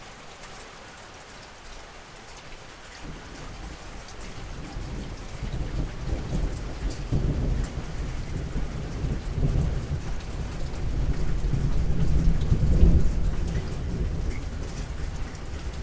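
A long roll of thunder rumbles in slowly, grows over several seconds to its loudest about three-quarters of the way through, then eases off. Rain falls steadily throughout.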